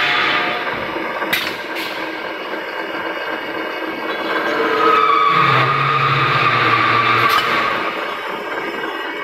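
Automatic pipe threading machine running, its die head cutting a thread on the end of a steel tube under coolant. There are a couple of sharp clicks about a second and a half in, and a steady whine with a low hum from about five to seven seconds in.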